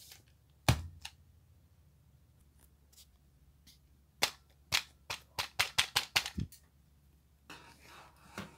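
Hard plastic clicks and snaps from an Adventure Force triple-barrel foam dart blaster being handled and loaded. There is one sharp snap about a second in, then a quick run of clicks around the middle of the clip, with a soft rustling noise near the end.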